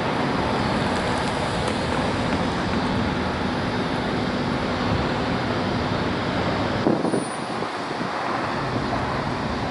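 Steady vehicle and traffic noise with a faint low hum running under it. About seven seconds in it changes abruptly to a thinner, lighter background rush.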